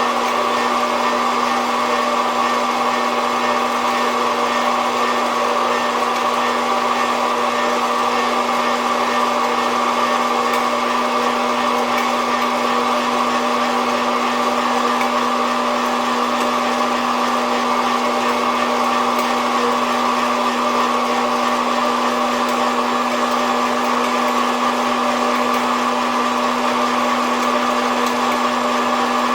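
SOUYI SY-121N hot-air coffee roaster running steadily during a roast: its fan and heater blowing with a constant hum and whoosh.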